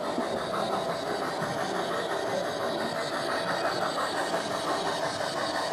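Gauge 1 model steam locomotive running with its coaches, giving a steady, rapid, even chuffing of several beats a second.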